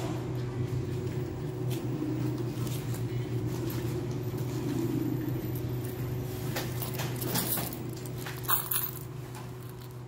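Steady low hum of room air handling, with a few scattered small clicks and jingles of small hard objects being handled, the sharpest about eight and a half seconds in.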